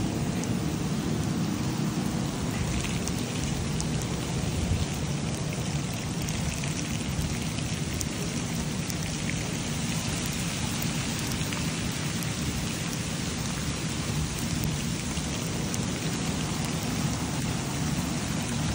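Steady rain falling, a continuous hiss with scattered drop ticks over a steady low rumble.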